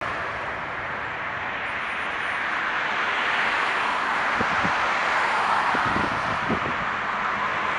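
Jet noise of an Airbus A320-200 on final approach, its twin IAE V2500 turbofans a steady rushing noise that grows slowly louder as the aircraft nears. A few brief low thumps come about halfway through and again near the end.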